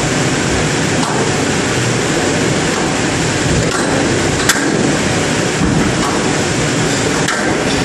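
Squash rally: a few sharp cracks of the ball off rackets and court walls, spaced irregularly and loudest about halfway through, over a steady background hiss.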